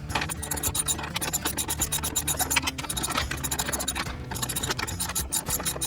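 Rapid, uneven clicking and scraping of metal parts being worked on at the swivel seat base.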